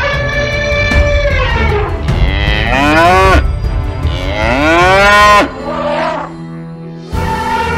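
Cattle mooing: a run of long drawn-out moos, each rising and then falling in pitch, with a short lull about two-thirds through before the last moo begins near the end.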